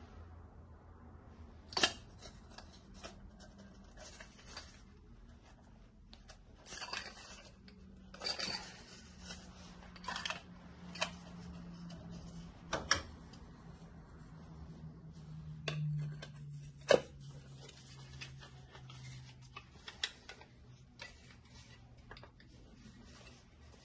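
Irregular clicks, taps and knocks of hard parts being handled and fitted together, as in assembling a cup sealing machine, with a few sharper knocks standing out.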